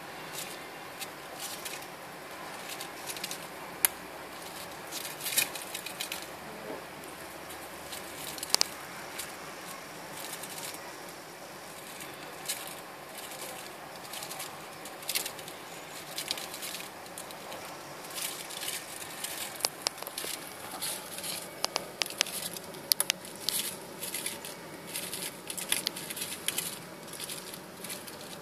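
Small claws of baby bearded dragons pattering and scratching on newspaper: a scattering of light ticks and rustles over steady room noise, growing busier in the second half.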